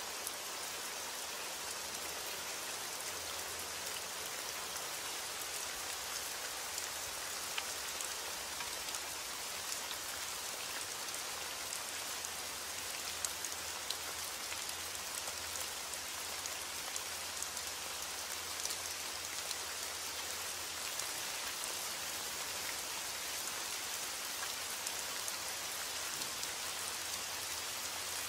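Steady rain: an even hiss with sharp ticks of individual drops scattered through it.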